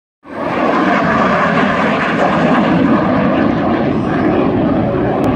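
Hawker Hunter T7 jet flying past, the steady, loud roar of its Rolls-Royce Avon turbojet.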